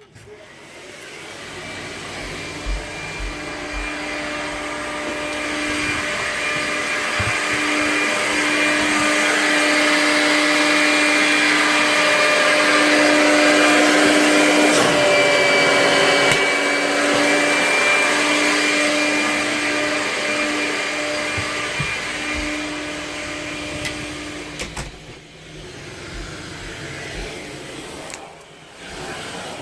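1988 Vacu-Maid central vacuum system running, a steady rush of air with a hum and a high whine, growing louder over the first dozen seconds and falling away about 25 seconds in.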